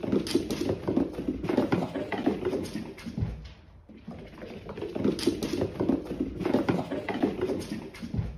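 A cat's paws pattering fast on a laminate wood floor as it runs, in two spells of quick taps with a short lull in the middle.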